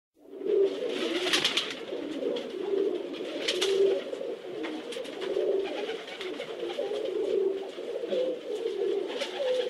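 Many racing pigeons cooing over one another in a steady, wavering low chorus, with a few brief rustles.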